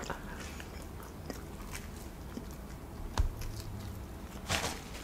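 Close-miked biting and chewing of pepperoni pizza, with small wet mouth clicks and smacks throughout. There is a single louder knock about three seconds in.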